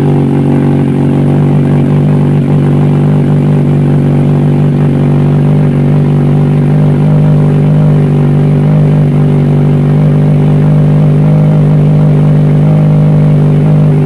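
Kawasaki Ninja 1000SX's inline-four idling steadily and loud through an SC Project screen-type slip-on muffler, just after a cold start with the engine temperature still reading empty.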